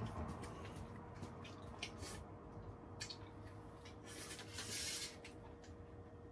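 Faint eating sounds: scattered light clicks of chopsticks against metal bowls, with a longer noodle slurp about four and a half seconds in.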